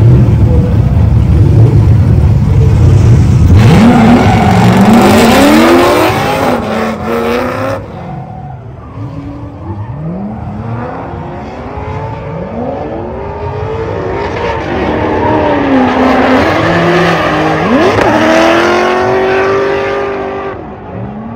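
Two drift cars' engines idling deep at the start line, then revving hard as they launch, pitch climbing and dropping again and again as they drift in tandem, with tire squeal. It drops quieter a few seconds in, then builds back up.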